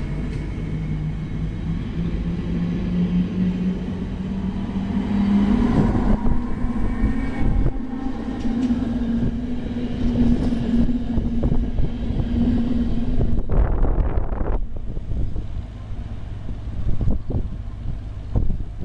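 NS ICMm 'Koploper' electric multiple unit pulling away and accelerating past, its traction drive humming with a pitch that rises over the first few seconds and then holds, over the rumble of wheels on rail. About three-quarters of the way through the sound drops away sharply as the train recedes, leaving a faint low rumble.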